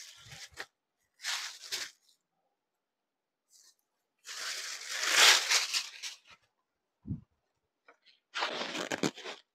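Rustling of a georgette-mix saree being unfolded and handled on a counter, in four bursts with the loudest near the middle. There is a soft low thump between the third and fourth bursts.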